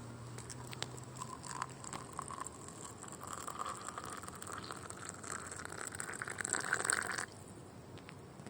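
Hot water being poured from a kettle into a cup, a steady splashing stream that grows stronger and then stops suddenly about seven seconds in.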